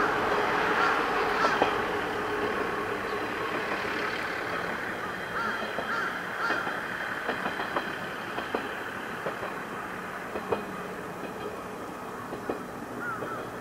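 Diesel railcar running along the track and moving away, its engine and wheel noise slowly fading, with scattered sharp clicks from the wheels and rails.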